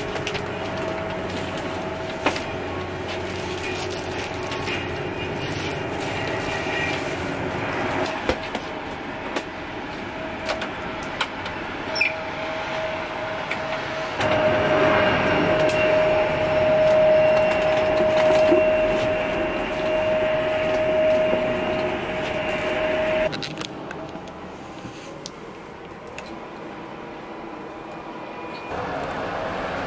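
Cabin ambience of a parked CRJ-900 regional jet: the aircraft's air system runs with a steady whine over rushing air, louder partway through, then cuts off abruptly, leaving a quieter hum. Light clicks and knocks of galley carts and compartments being handled sit on top.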